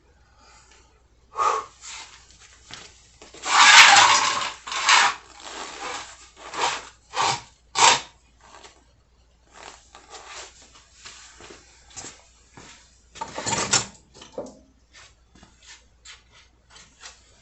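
Hand tools and metal parts being handled: irregular clicks, knocks and scrapes. There is a longer, louder rattling scrape about four seconds in and another a little before the end.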